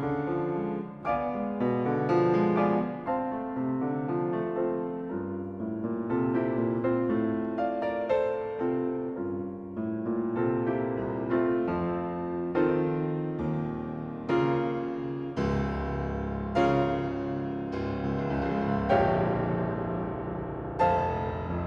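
Background piano music: a solo piano piece, a series of struck notes and chords that ring and fade.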